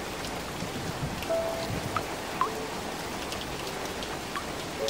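Steady rain falling on water and ground, an even hiss with scattered drops. A few soft, short held musical notes sound faintly over it.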